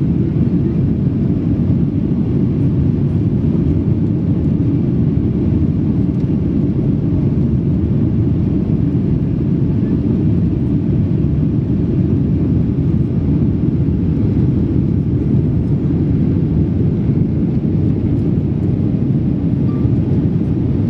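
Steady low rumble of a Boeing 737 airliner in flight, the engines and rushing air heard inside the passenger cabin.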